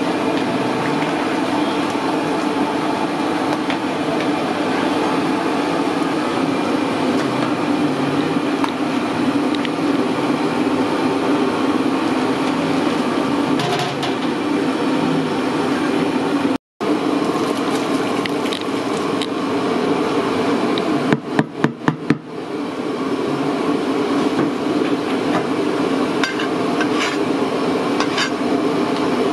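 Steady roar of the gas burner and boiling of a big aluminium pot of biryani stock, with a long ladle stirring in it. A quick run of sharp knocks comes about two-thirds of the way in.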